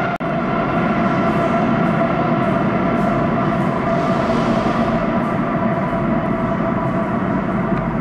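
Madrid Metro Line 3 train running through the tunnel beyond the platform: a steady rumble with a sustained high ringing tone over it that slowly weakens.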